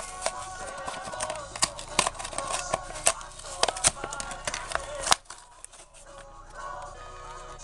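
Plastic and cardboard toy packaging being torn open and handled: a dense run of sharp clicks and crinkles that thins out about five seconds in. Music plays underneath.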